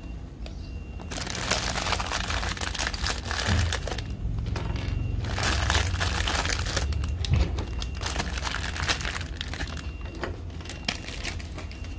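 Clear plastic bag crinkling in several long bursts as hands rummage inside it for toy-brick dinosaur pieces, with a few light clicks near the end.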